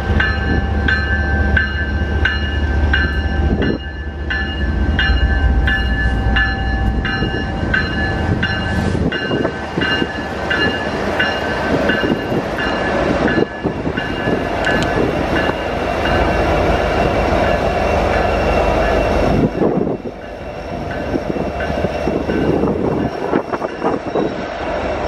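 BNSF coal train passing close by: the diesel locomotives (an ES44DC leading, an SD70ACe trailing) go by with a heavy, deep rumble while a bell rings quickly and steadily, then the coal cars follow with wheels rumbling and clattering over the rails, with sharp clicks at rail joints.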